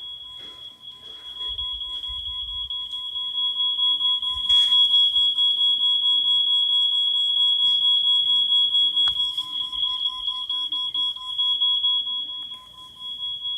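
Smoke-alarm sound effect played through phone speakers: a steady high-pitched tone with a fainter lower tone beneath it. It grows louder over the first few seconds and drops back near the end.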